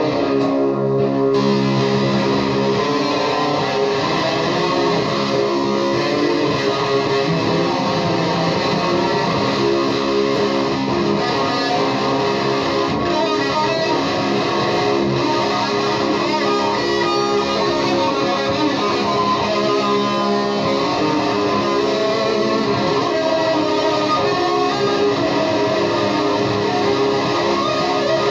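Electric guitar played through an Orange amplifier in a dense psychedelic noise loop: many sustained, overlapping tones at an even, loud level with no breaks.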